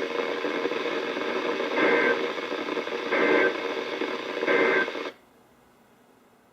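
NOAA Weather Radio broadcast on a Sangean CL100 receiver: static hiss broken by three short bursts of two-tone SAME digital data, the end-of-message code that closes an alert. The audio cuts off sharply about five seconds in.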